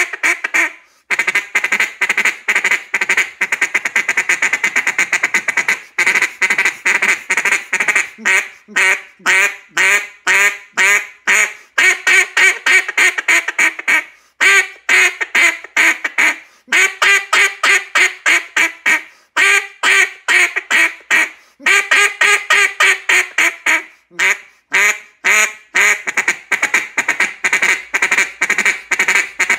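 A hand-blown cut-down DC Mondo duck call giving quick runs of mallard-hen-style quacks, many notes a second. Each run is broken by a short pause.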